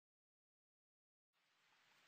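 Silence, then about a second and a quarter in a very faint, even hiss like rain fades in and slowly grows.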